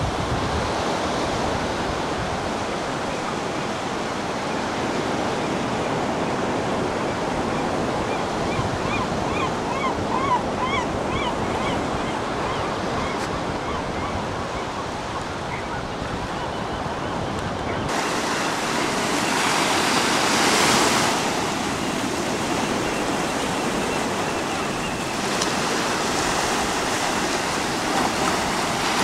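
Steady rush of Pacific surf, with a few faint gull calls about a third of the way through. From about two-thirds of the way in, nearer waves break and wash up the sand, swelling twice.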